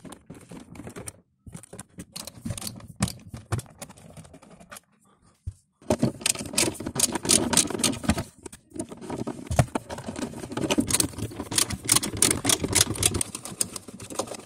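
Rapid metallic clicking and rattling of an 8 mm socket on stacked extension adapters as the glove box screws are turned out by hand. The clicking stops twice briefly, then runs on thickest through the second half.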